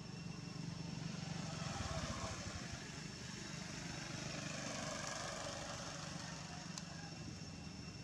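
A motor vehicle, likely a motorbike, passing on the road, its engine noise swelling about a second in and fading again near the end.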